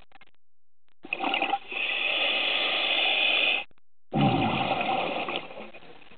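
Scuba regulator breathing underwater: a steady hissing inhale of about two and a half seconds, a short pause, then a bubbling exhale.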